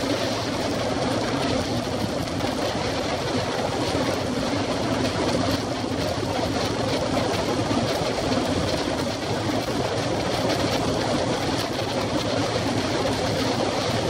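Steady rush of wind over a camera microphone on a road bicycle moving at about 65 to 70 km/h, with road noise mixed in.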